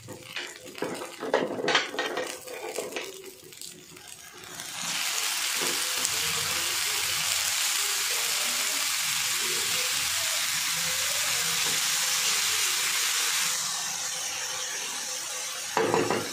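Dosa batter sizzling on a hot tawa: a few clinks and knocks of utensils, then from about five seconds in a loud, steady sizzle that eases off a little near the end, with a brief clatter just before it ends.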